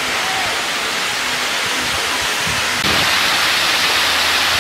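Waterfall pouring onto rock close by: a steady rush of falling and splashing water that grows louder and brighter about three seconds in.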